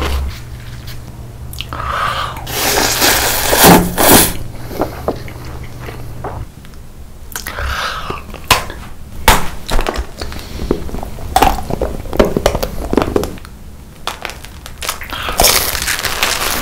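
Biting and crunching into hard, brittle food: clusters of sharp cracks and crunches with chewing noise between them.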